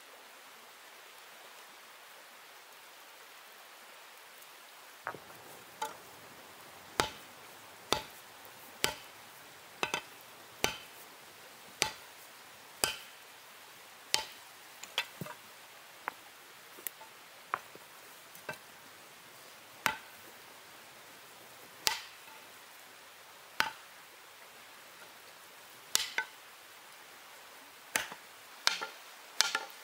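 A hand-held stone hammer striking hot iron on a stone anvil: sharp knocks with a short ring, irregular at roughly one a second, starting about five seconds in over a steady hiss.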